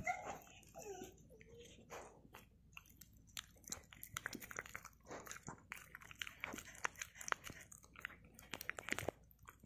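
A dog chewing and biting pieces of bread-wrapped sausage, close up: wet smacking and crunching in quick, irregular clicks.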